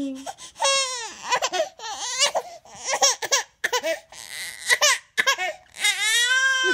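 A baby's high-pitched vocal outbursts, halfway between crying and squealing, in a series of short broken bursts with breathy gasps between, and a longer drawn-out one near the end.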